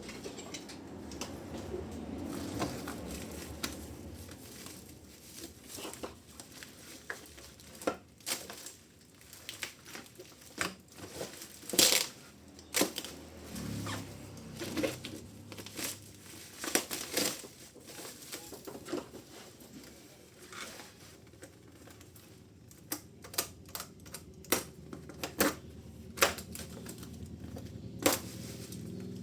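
Packaging being handled during an unboxing: irregular clicks and knocks, with a sharp one about twelve seconds in and a quick run of them near the end.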